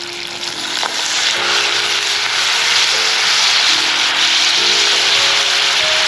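Chicken frying in a cast iron Dutch oven sizzles harder as red wine is poured in; the hiss swells about a second in and then holds steady.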